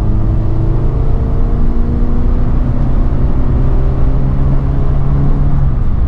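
MG Metro 1300's A+ series four-cylinder engine, with its gearbox in the sump, pulling under acceleration while driving. The engine note climbs steadily, drops once about two seconds in, then climbs again.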